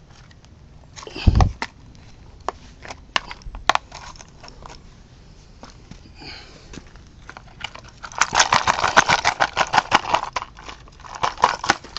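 Plastic casing and parts of an AC adapter being pried and broken apart by hand: scattered clicks and snaps with one heavy knock about a second in, then a couple of seconds of rapid crackling and snapping near the end.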